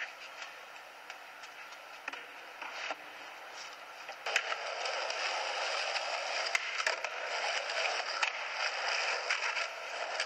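Skateboard wheels rolling over rough concrete: a steady gritty rolling noise that comes in about four seconds in, with sharp clicks and knocks from cracks and joints. Before that there are only faint scrapes and knocks.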